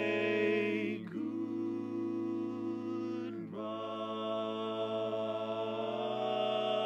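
Male barbershop quartet singing a cappella, holding a long chord on the word "say". The upper voices move to a new chord about a second in and again about three and a half seconds in, while the bass note stays put underneath.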